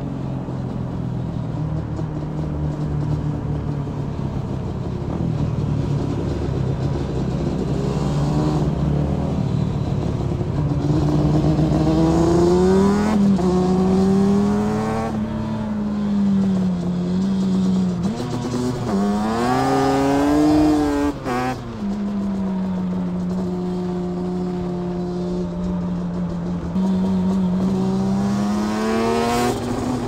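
Motorcycle engine running under way, its revs climbing and dropping several times through the middle, then holding a steady note near the end.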